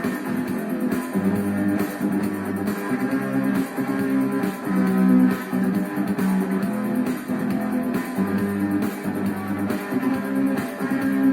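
Instrumental intro of a rock song: guitars playing over a repeating bass line, before the singing comes in.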